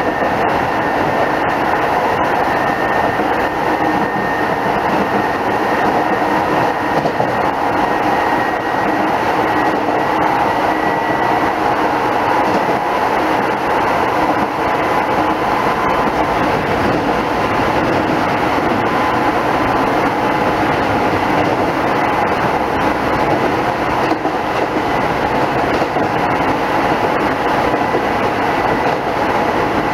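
Keisei 3500-series electric commuter train running at speed, heard from inside the passenger car: a steady rolling roar of wheels on rail with a faint high whine.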